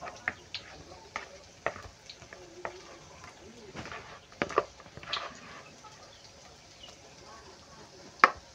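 Green plastic spoon stirring thick bakwan batter of shredded vegetables and flour in a bowl, with irregular taps and scrapes of the spoon against the bowl. The sharpest knock comes near the end.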